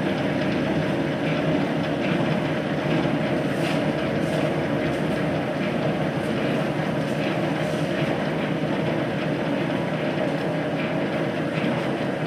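Metal lathe running steadily with a constant mechanical hum while the tool is fed very slowly through a light finishing cut.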